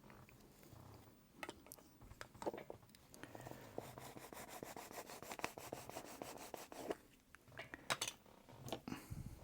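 Soft rubbing as fingers work lubricant onto a small rubber watch O-ring, with a run of quick, even strokes in the middle and a few light clicks near the start and end.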